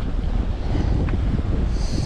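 Wind buffeting the microphone on a sailboat under way, with water rushing along the hull. A short hiss of spray comes near the end.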